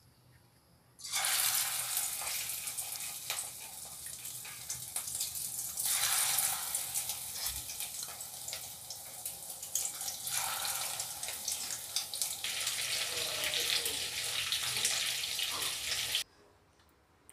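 Flour-and-egg-coated prawns deep-frying in hot oil: a steady sizzle with fine crackling. It starts about a second in and cuts off suddenly near the end.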